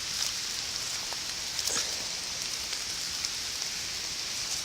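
Steady rain falling, a constant hiss, with a few light taps about a second and a half in.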